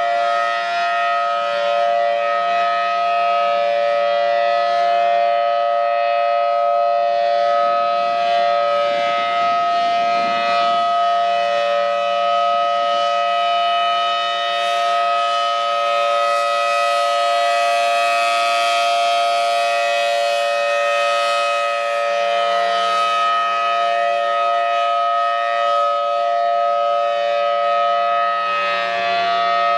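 Outdoor warning siren sounding a loud, steady tone made of several pitches at once, held without rising or falling.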